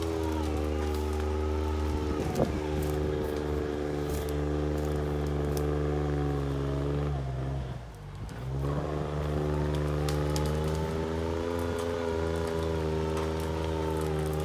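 Alstor 821 miniforwarder's engine running steadily as the machine drives over brash, with scattered cracks of branches and twigs. About seven seconds in, the engine note drops and the sound dips for about a second, then comes back up to the same steady note.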